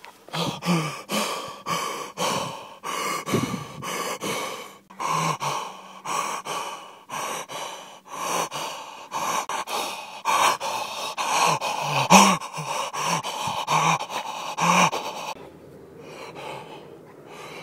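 A man gasping and breathing hard, about two loud, voiced gasps a second, while running with the camera jostling. The gasps stop about fifteen seconds in, leaving softer breathing.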